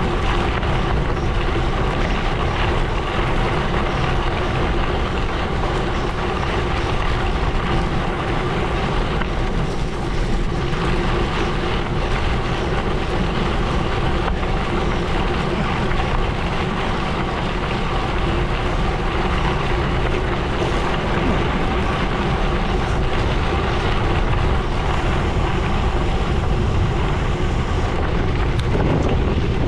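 Gravel bike tyres rolling over a gravel road at speed: a steady crunching rumble, with wind buffeting the microphone.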